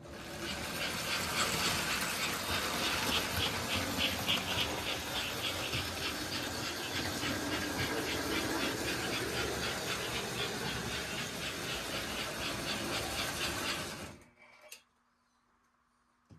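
American Flyer S-gauge toy steam locomotive running around the track: motor whirring and wheels clattering on the tinplate rails with a rapid rhythmic pattern. It starts suddenly as power comes on and cuts off abruptly about fourteen seconds in, when the train stops.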